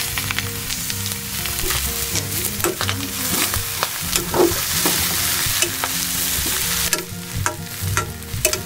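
Sliced okra and ground pork sizzling in a metal pan while being stirred, with frequent clicks and scrapes against the pan over a steady hiss.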